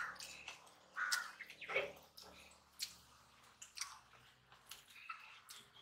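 Quiet eating sounds of people eating mutton biryani by hand: chewing, mouth clicks and the short ticks of fingers working the rice.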